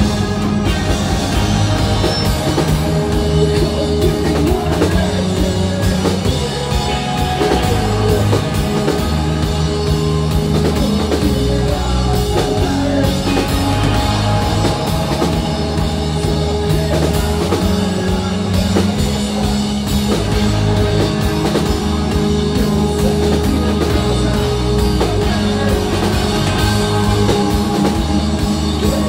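A rock band playing live, with electric guitars and a drum kit, loud and steady throughout.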